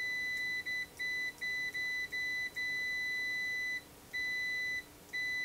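A digital multimeter's continuity beeper sounding a loud, high, steady tone that keeps cutting in and out as the test leads make and break contact. It breaks off several times in quick succession in the first half, then stops for longer gaps twice near the end.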